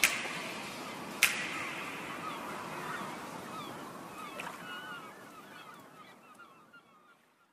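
Background music fading out to silence, with two sharp percussive hits about a second apart near the start. Short chirping glides sound in its fading tail.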